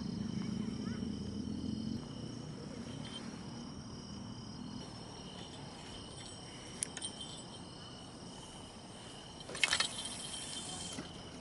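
Night insects such as crickets chirring steadily in several high tones. About ten seconds in comes a brief rushing hiss, the line running off a spinning reel on a cast.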